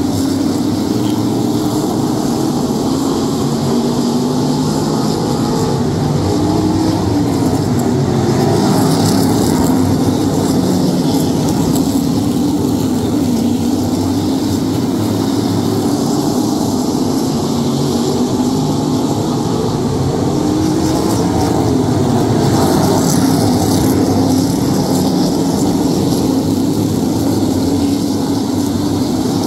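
A field of Modified race cars running laps, many V8 engines blending into a loud, steady drone. Its pitch rises and falls slightly as cars pass.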